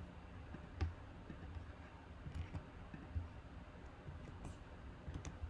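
A few faint, scattered clicks from computer keys and a mouse over quiet room tone.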